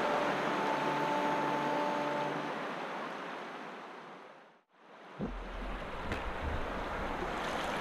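Rushing water running over rocks, fading out to silence about halfway through. Then the water sound comes back with a low rumble of wind on the microphone and a small knock.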